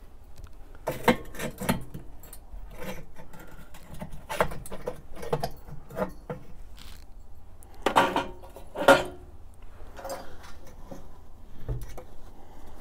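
Metal grates clinking, knocking and scraping inside a Char-Griller Akorn kamado as the lower charcoal grate is worked loose and lifted out: irregular clatter, loudest about eight to nine seconds in.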